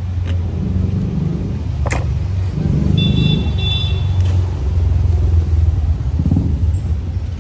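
Motor vehicle engine running close by: a loud, low, steady rumble that swells and eases. A sharp knock comes about two seconds in, and a brief high squeal around three seconds.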